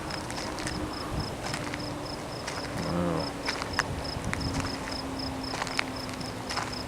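Crickets chirping in a steady, evenly spaced high pulse about four times a second, over a low wind rumble with scattered faint clicks.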